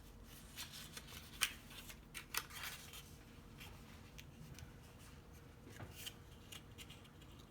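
Faint rustling and clicking of cardstock paper petals being handled and pressed together while hot-gluing a paper rosebud, with a few sharper clicks about a second and a half in and around two and a half seconds in.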